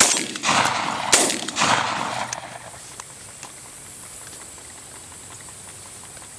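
Two shotgun shots about a second apart, each with a short echoing tail, then quiet field background.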